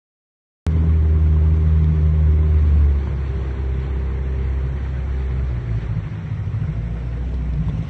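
Motorboat engine running with a steady low drone, its pitch and level dropping about a second in, then shifting again a few seconds later.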